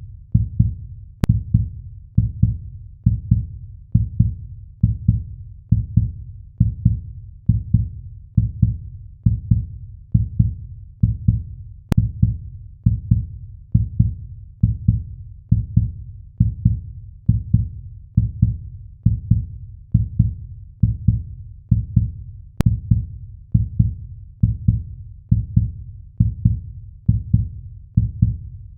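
Heartbeat sound effect: a steady, slow pulse of deep double thumps (lub-dub), about one beat a second.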